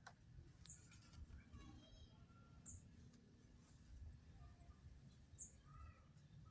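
Near silence with a few faint, short bird chirps scattered through it over a steady faint high whine.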